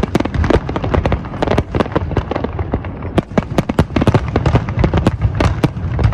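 Fireworks display going off: a dense, rapid string of bangs and crackles, many a second, with a low rumble underneath.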